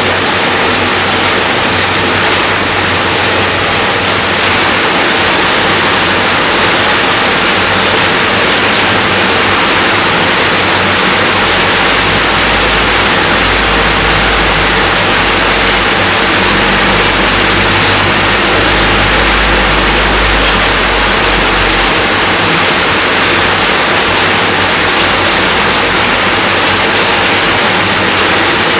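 Steady rainfall, an even hiss of many drops with no gaps. A low rumble swells underneath for about ten seconds in the middle.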